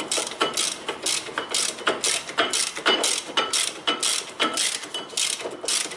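Ratchet wrench with a 17 mm socket clicking in quick repeated strokes as it turns a brake caliper bolt tight.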